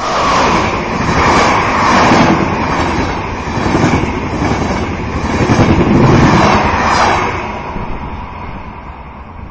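Train passing: a loud rushing rumble that starts suddenly, swells several times and eases off near the end.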